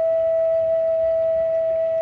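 Tongan bamboo nose flute (fangufangu) holding a single long, steady note.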